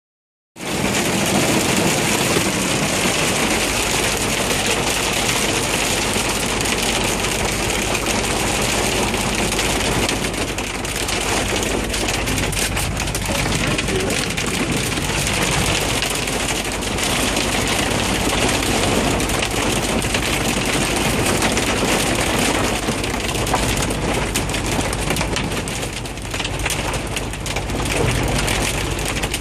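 Heavy rain and hail pelting a truck cab's roof and windshield: a dense, steady hiss crowded with small hits, over the steady low hum of the idling truck engine.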